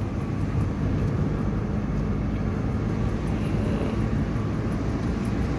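Car engine running with road noise, heard from inside the cabin while driving: a steady low hum.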